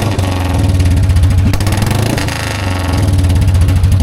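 Motorcycle engine running with a steady, rapid low beat. It eases off briefly about halfway through and then picks up again.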